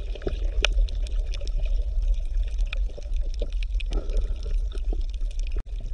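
Underwater water sound: a steady low rumble of moving water with scattered small clicks and crackles.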